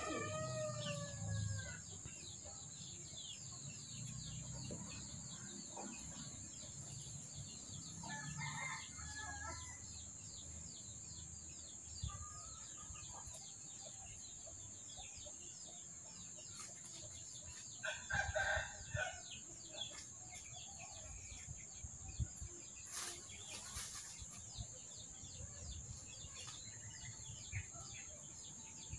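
White rooster calling three times: right at the start, about 8 seconds in, and loudest about 18 seconds in. A steady high-pitched hiss and many faint short chirps run underneath.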